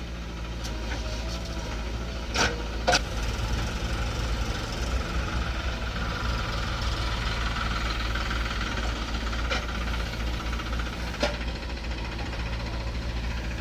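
Heavy diesel engine of the loading machinery running steadily, with two sharp knocks about two and a half seconds in and another near the end.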